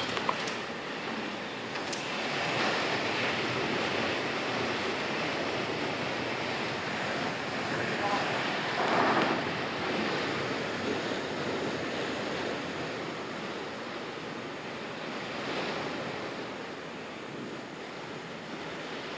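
Heavy storm rain and wind, a steady rushing noise coming in through a window that won't shut the whole way, swelling briefly about nine seconds in.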